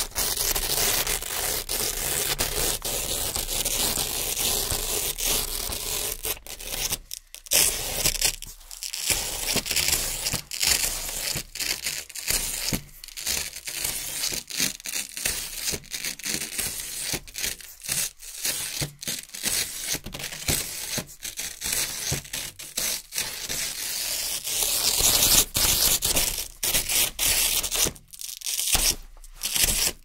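Hook-and-loop (Velcro) strips being peeled off a board, with a crisp ripping sound. A long unbroken rip for the first several seconds, then many short rips with brief pauses, and another longer continuous rip late on.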